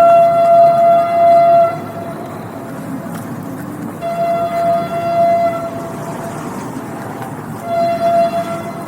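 Train horn blowing three times, two long blasts and then a short one, over the steady rumble of the train running.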